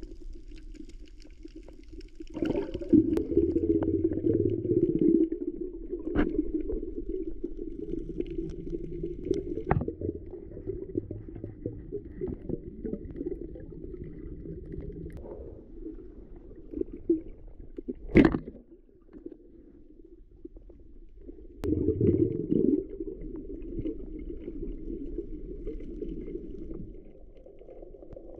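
Muffled water sounds with gurgling, rising in two loud surges, a couple of seconds in and again near the end, with a single sharp click in between.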